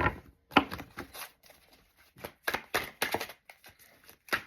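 A deck of tarot cards being shuffled by hand: irregular runs of quick card clicks and slaps, with short pauses between them.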